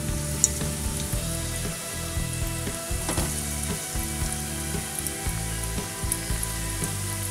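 Breaded chicken and cheese balls sizzling in hot oil for deep-frying, the oil bubbling hard around them as more balls are lowered in one by one.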